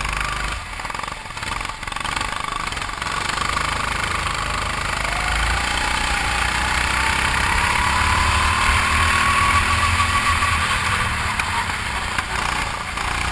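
270 cc (9 hp) go-kart engine running hard, its pitch climbing steadily through the middle as the kart accelerates, with a steady hiss underneath.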